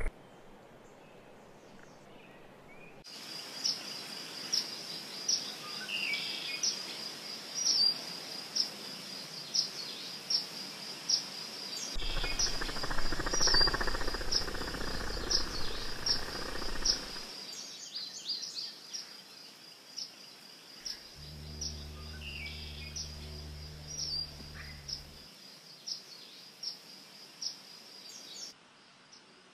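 Field insects trilling steadily and high, with sharp chirps repeating about one and a half times a second. A rushing noise swells in the middle, and a low steady hum comes in briefly later on.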